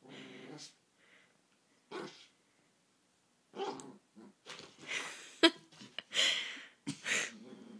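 Chihuahua giving short barks and growls in scattered bursts, coming faster in the second half, with one sharp click a little past halfway.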